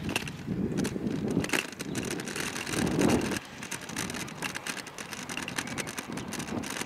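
Kick scooter rolling along an asphalt path: the wheels rumble steadily on the tarmac, swelling and easing every second or so, with many small clicks and rattles.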